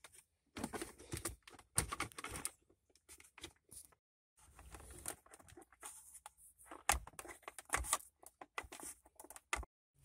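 Plastic center-console trim around the gear shifter of a 1997 Honda Accord being wiggled and pulled loose by hand, a string of irregular clicks, knocks and rustles as its clips give.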